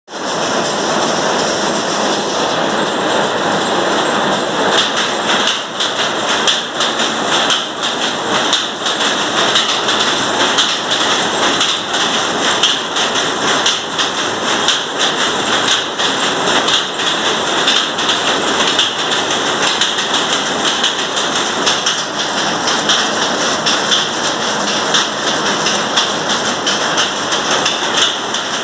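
Power loom with an electronic jacquard head weaving, a loud, steady mechanical clatter with a fast, even beat.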